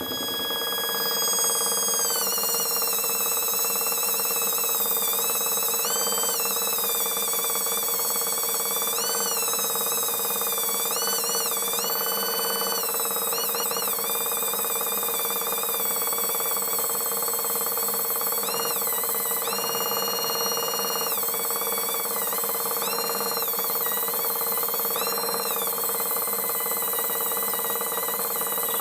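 High-speed rotary grinder porting a two-stroke motorcycle cylinder block, with a steady high whine whose pitch swings up and back down again and again as the bit bites into the port walls and lets go.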